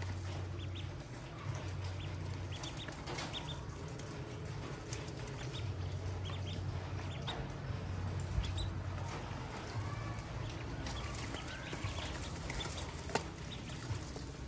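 Newly hatched ducklings peeping in short high chirps as they peck at feed in a metal basin, over a steady low hum. A single sharp knock comes near the end.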